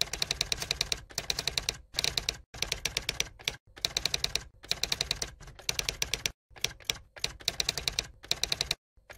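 Typewriter sound effect: rapid key strikes, about ten a second, in runs of under a second with short breaks between them.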